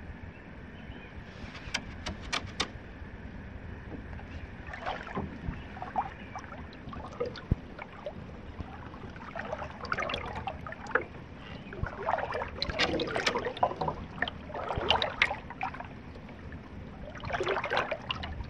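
Slow canoe paddle strokes, water swirling and dripping off the blade every few seconds, with a few sharp clicks near the start.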